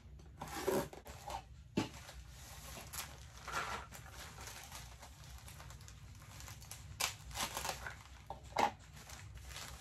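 Packaging handling: a cardboard shipping box is opened and a plastic mailer lifted out, giving irregular rustling and crinkling with a few sharp taps.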